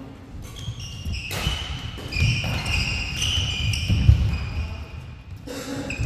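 Badminton doubles rally on an indoor court: sports shoes squeaking in short high chirps on the floor, footsteps thudding, and a sharp racket strike on the shuttlecock a little over a second in. The loudest thud comes about four seconds in.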